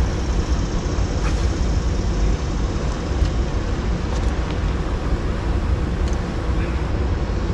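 A steady low rumble of outdoor background noise with no changes in level, heaviest in the bass. A few faint light clicks sound now and then.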